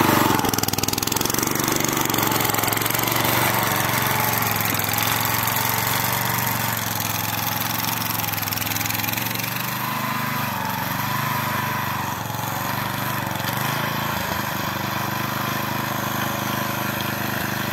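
Engine of a walk-behind two-wheel tractor running steadily while it pulls a plough through the soil.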